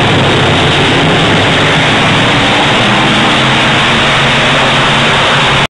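Several dirt-track Thunder Car stock cars racing around the oval, their engines blending into one loud, steady din.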